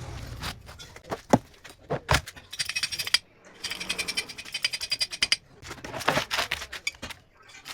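Metal tools working on a hydraulic jack: sharp knocks and clicks, and two runs of fast, even clicking in the middle.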